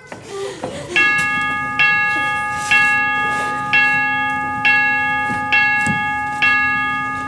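A clock's bell striking seven times, about once a second, each stroke ringing on into the next; the clock is striking the hour at the office's closing time.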